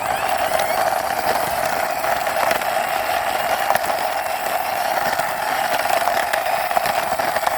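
Toy motorbike pushed along by hand, its small plastic wheels running with a steady whirring rattle of fine, fast clicks.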